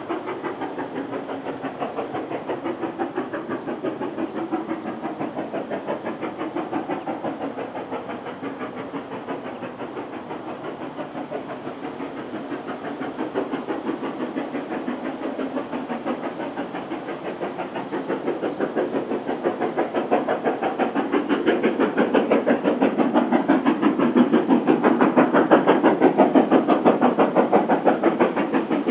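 Steam locomotive working hard on a steep climb, its exhaust beating in a rapid, even rhythm with a hiss of steam. It grows louder in the second half, as if drawing closer, then eases slightly near the end.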